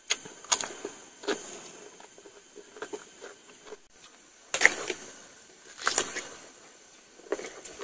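Raw cucumbers being bitten into and chewed, a string of crisp crunches at uneven intervals, with the loudest bites about a second and a half apart.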